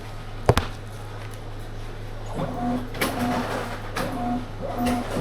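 Lottery ticket printer running in short repeated whirs, each with two steady tones, coming about every 0.7 s, after a single sharp click about half a second in. A steady electrical hum runs underneath.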